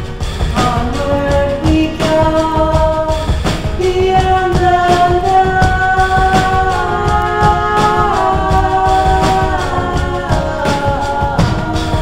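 Background music: a song with long held melody notes stepping up and down over a steady beat.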